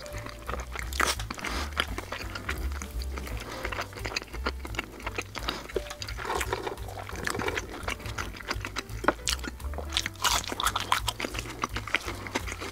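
Close-miked eating of burgers smothered in melted cheese sauce: bites, wet smacking and chewing, many short sounds throughout. Background music plays underneath.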